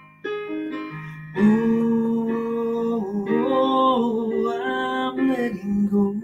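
Woman singing a slow song with instrumental accompaniment, holding long drawn-out notes from about a second and a half in.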